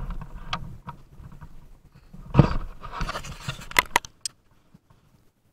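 Handling noise from a handheld camera being moved about: rubbing and rumbling, a heavier knock about two and a half seconds in, then several sharp clicks.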